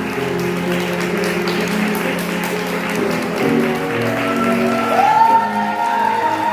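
Music playing for the bride's wedding entrance, with guests applauding over it. About five seconds in, a high note rises and holds.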